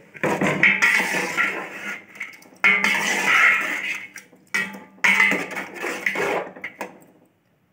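A ladle stirring and scraping through thick dal in a large metal cooking pot. It comes in three bouts of quick scraping strokes and stops shortly before the end.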